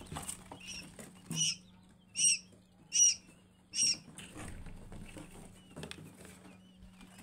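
Newly hatched quail chicks peeping: four short, high-pitched peeps a little under a second apart, over a faint steady hum.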